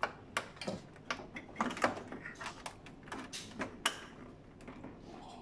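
Hard plastic clicking and knocking as the side cover panel of a Fuji Xerox DocuPrint CM225 laser printer is worked loose by hand, its snap latches catching and releasing in an irregular series of sharp clicks.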